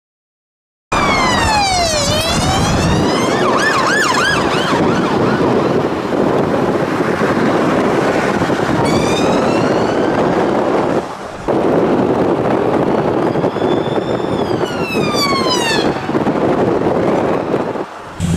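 UK emergency vehicle sirens sweep up and down in pitch, at times two crossing each other, over loud road traffic noise. The sound starts about a second in and cuts out briefly twice.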